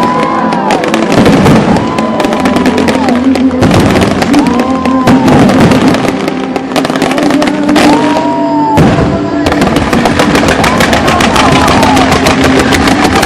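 Fireworks crackling in rapid, dense volleys over show music, whose melody rises and falls in a phrase repeating about every two seconds.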